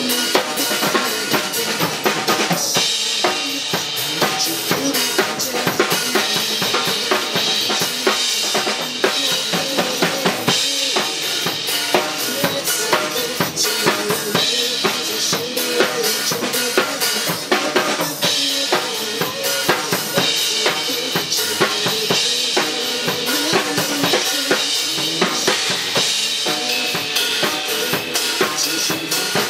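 A drum kit played live in a steady pop groove, with kick and snare driving the beat, over a recorded backing track of the song.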